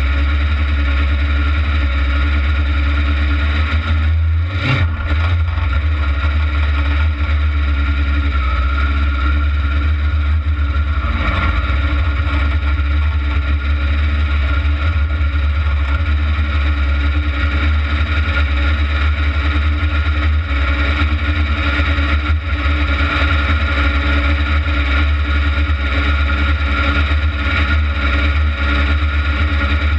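Kart cross engine running loud and steady, heard up close from the car's own onboard camera, with a single knock about four and a half seconds in.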